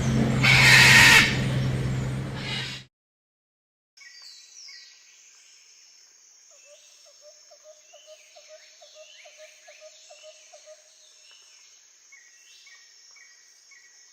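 A loud rushing noise with a steady low hum cuts off abruptly about three seconds in. After a second of silence comes forest ambience: a steady high insect buzz and many short falling bird chirps. A run of quick low pulsed calls, about five a second, sounds in the middle, and repeated short chirps come near the end.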